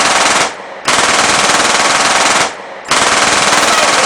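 Rapid automatic machine-gun fire, a sound effect laid over a Nerf battle, in long unbroken bursts with two short breaks.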